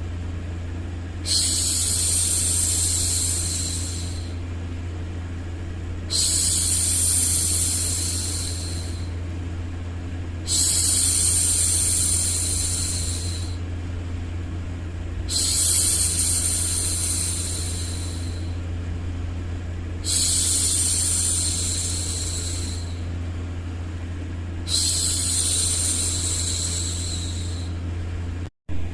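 A woman shushing a baby, six long "shhh" sounds, one about every five seconds, over a steady low hum of white noise. There is a brief dropout in the sound near the end.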